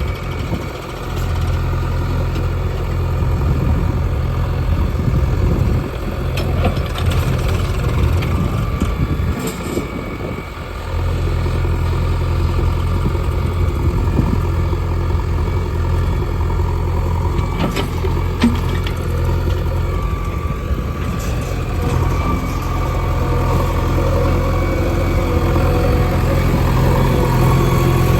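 JCB 3DX backhoe loader's diesel engine running under load while loading soil, steady apart from brief drops in level about a second in and again around ten seconds in.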